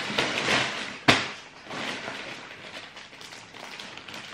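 Clear plastic packaging bag crinkling and rustling as a bagged horse rug is handled, with one sharp knock about a second in.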